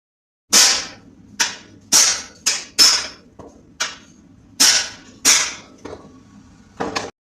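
Hammer blows on metal: about ten sharp strikes at an uneven pace, each dying away quickly.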